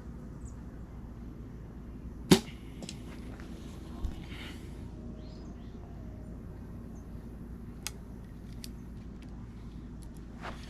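A bow shot: one sharp, loud snap of the released string about two seconds in, followed by a smaller knock a couple of seconds later and a few faint clicks.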